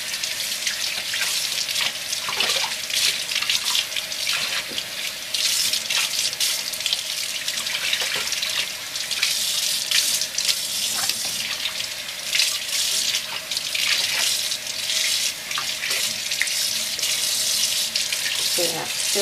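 Kitchen tap running cold water into the sink as raw pork spare ribs are rinsed under it, with a steady rush broken by uneven splashes.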